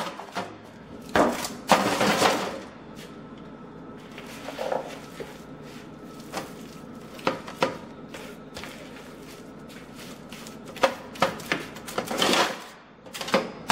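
Hands squishing and kneading a wet ground-meat, oatmeal and egg-white meatloaf mixture, with soft irregular squelches and slaps as handfuls are scooped from a bowl and pressed onto a foil-lined baking sheet. Louder bursts come about a second in and again near the end.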